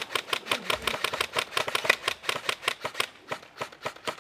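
Airsoft guns firing quick strings of sharp, clicking shots, about ten a second, thinning out near the end and cutting off suddenly.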